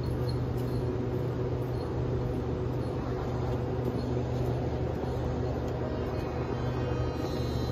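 A train of stainless-steel passenger coaches alongside the platform, with a steady low mechanical drone from the train's diesel engine or generator and a few faint light ticks.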